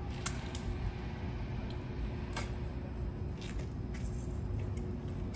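Steady low background rumble with a steady hum, broken by a few small clicks and rattles.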